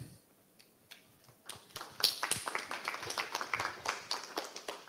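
Audience applauding, beginning about a second and a half in and dying away near the end.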